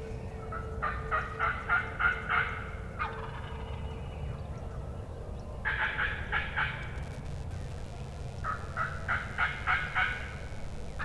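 Wild turkey tom gobbling three times, each gobble a fast rattling run of notes, gobbling so hard he is shrieking.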